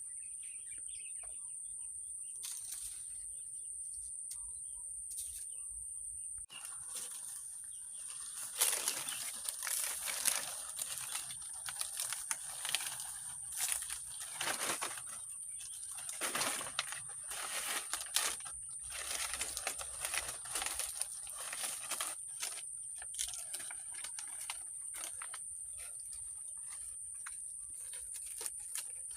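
Steady high-pitched insect drone, like cicadas or crickets, throughout. From about six and a half seconds in, irregular rustling and crackling bursts come in, loudest between about 8 and 19 seconds.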